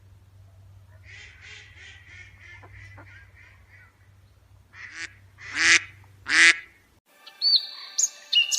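Ducks quacking: a run of soft, quick quacks, then three loud quacks in a row. Music comes in near the end.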